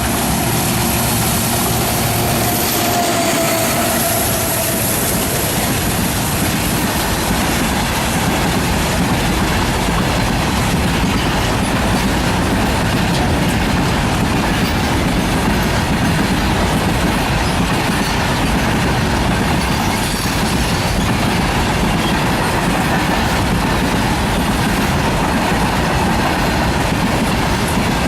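Heavy freight train of BCNA covered wagons rolling past at speed: a steady rumble and clatter of wheels on the rails, with a brief squeal a few seconds in.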